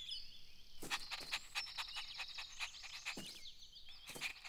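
Faint quick panting of a cartoon puppy, about four or five short breaths a second starting about a second in, with birds chirping in the background.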